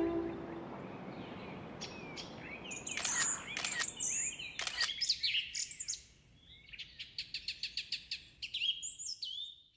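Small songbirds chirping in short, pitch-bending calls over a faint outdoor hiss, with a few sharp clicks in the first half. Near the end comes a rapid trill of quickly repeated notes.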